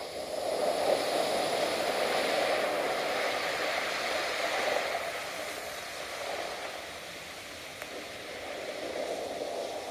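A steady rushing noise like surf, with no tune or voice. It swells within the first second, eases off about halfway through and rises a little again near the end.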